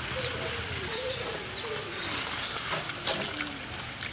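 Birds calling: short, quick falling chirps and lower wavering calls, over a steady hiss.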